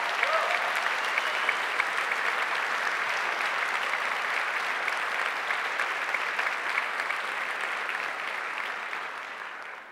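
Audience applauding steadily, a dense patter of many hands clapping that eases off slightly near the end.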